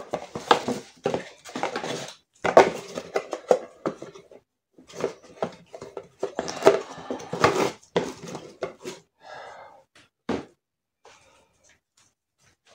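A new clutch basket being handled and taken from its packaging: rustling of the box and wrapping with light metal clinks and knocks. The sounds are dense for about ten seconds, then thin out to a few scattered clicks.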